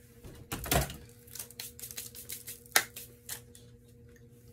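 Plastic dressing cup and takeout packaging handled up close: irregular clicks and crackles, with a thump just under a second in and a sharp snap a little under three seconds in.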